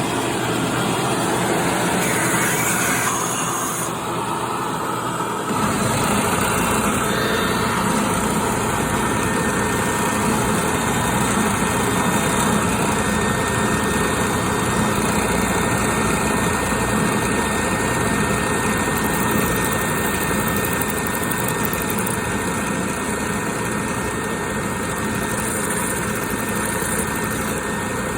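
Bandsaw running steadily. About five seconds in, a deeper low hum joins and holds, with a thin steady high tone over it.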